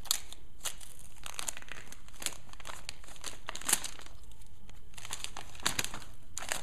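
Gift wrapping paper being torn and crumpled by a child's hands: irregular ripping and crinkling rustles, briefly pausing a little past halfway.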